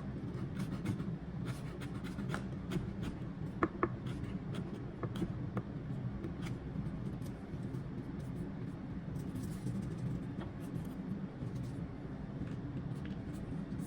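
Chef's knife finely dicing a habanero pepper on a cutting board: irregular sharp taps and scrapes of the blade on the board, over a steady low hum.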